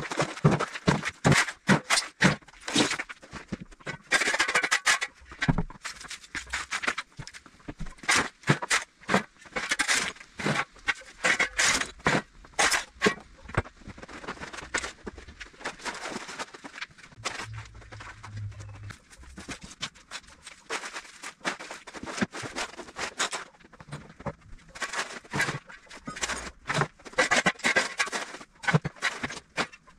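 Bricks and mortar rubble clattering and scraping as a brick wall is broken up and the loose bricks are handled, with irregular knocks and scrapes throughout.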